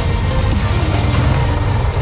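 Background music over a low, steady rumble of motorcycle engines on the road.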